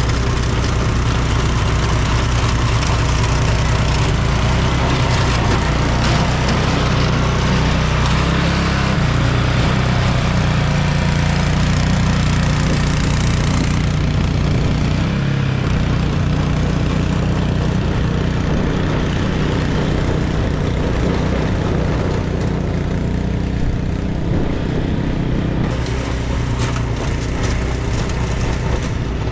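Vehicle engine running steadily, its pitch shifting a few times as it works.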